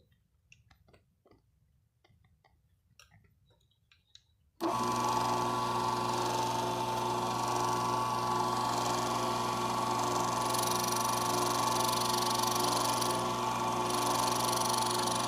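A few faint clicks, then about four and a half seconds in a CNC router's spindle comes in suddenly and runs steadily with a held whine, making light cuts in a small wooden mold blank.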